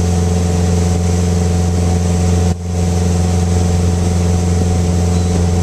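Motorboat engine running steadily at towing speed, a constant low drone, with the rushing of the churning wake over it. The sound dips briefly about two and a half seconds in.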